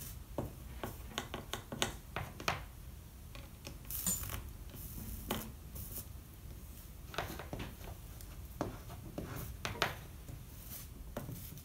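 Scattered light clicks and taps of stained glass panels, a brass lamp cap and a soldering iron knocking together as a glass lamp shade is held and soldered at the top.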